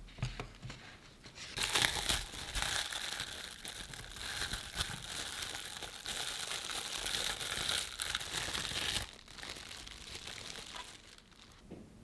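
A light knock at the very start, then plastic cling film crinkling and crackling for several seconds as it is peeled off a glass measuring jug, dying down to soft rustles near the end.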